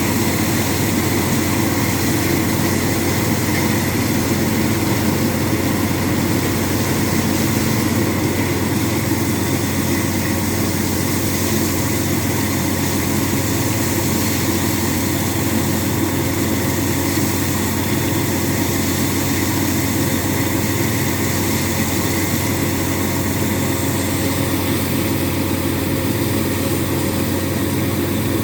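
Heavy diesel machinery of a borehole drilling rig, running steadily under load with a deep, even hum and a dense mechanical rattle, without a pause.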